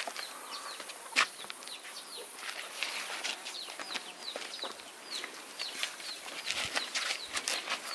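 Small birds chirping over and over, short high notes that fall in pitch, with scuffs and knocks of feet on dirt and a sharp click about a second in.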